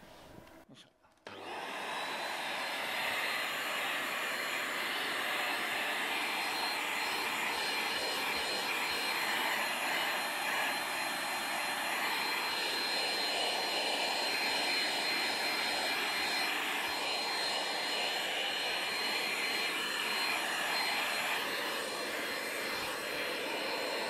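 Vacuum cleaner running steadily, a high, thin whine over its even rush of air. It starts abruptly about a second in.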